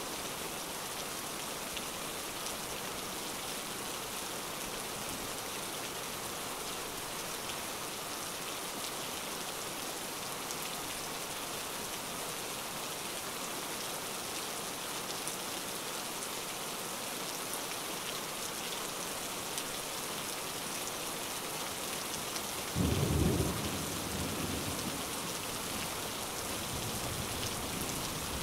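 Steady rain, with a crack of thunder that rumbles and fades over a few seconds near the end.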